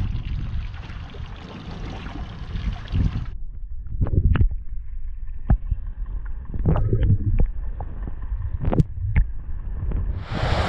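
Wind buffeting the microphone over water slapping a small boat's hull in light chop. About three seconds in the sound turns quieter, with a scattering of sharp knocks. Near the end a louder, even rush of wind and surf comes in.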